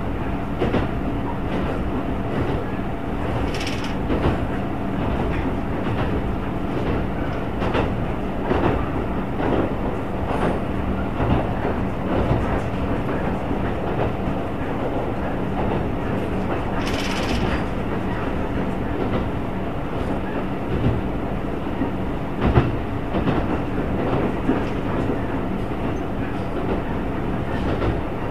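Wakasa Railway diesel railcar running along the line, heard from inside the car: a steady engine drone with irregular clicks of the wheels over rail joints. Two brief hisses come about 4 and 17 seconds in.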